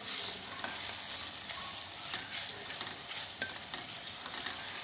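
Chopped onions and garlic sizzling in hot oil in an aluminium karahi, stirred with a wooden spoon: a steady frying hiss with scattered light scrapes and taps of the spoon against the pan.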